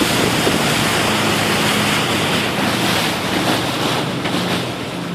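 Motorboat under way: wind buffeting the microphone and water rushing past the hull, with a steady engine hum underneath.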